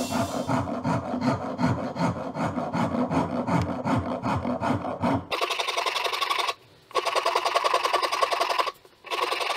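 Background music with a steady beat for about the first five seconds. It cuts off suddenly, and a hand rasp is heard scraping across a hardwood plane body in long strokes, with two short breaks where the rasp is lifted.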